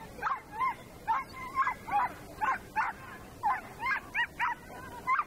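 A dog yipping over and over in short, high-pitched barks, about two or three a second.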